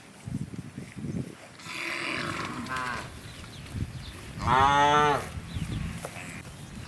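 Cows mooing: a softer, rough call, then a louder, clear moo about four and a half seconds in that lasts under a second.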